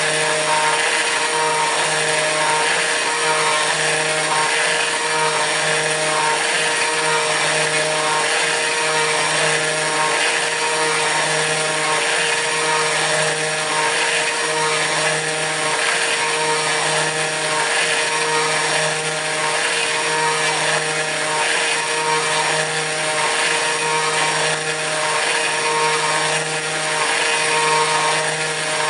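Kress FME-1050 router spindle on a CNC milling machine running steadily at high speed while milling aluminium. A hiss and a whine run throughout, over a low hum that swells and fades about once a second.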